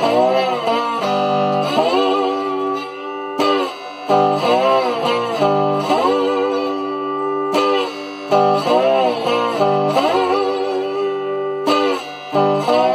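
Electric guitar played with a slide in open G tuning, a blues riff of sliding phrases whose notes bend up and down, repeating about every four seconds, each answered by sharply struck chords.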